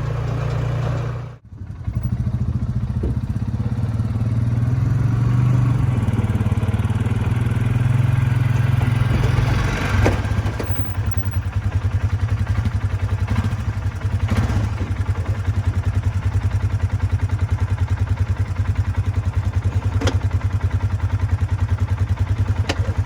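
Polaris four-wheeler's engine running. It pulls harder for several seconds midway as it is driven, then settles to an even idle, with a few sharp knocks.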